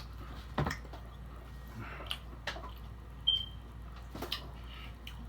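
Close-up wet mouth sounds of someone eating chicken fingers and fries: chewing and lip smacking, with a few short sharp clicks.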